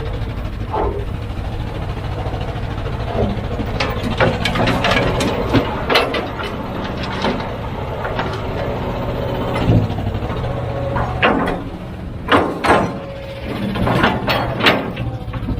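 Heavy diesel engine of earthmoving equipment running steadily, with repeated sharp knocks and clanks over it that are loudest in the second half.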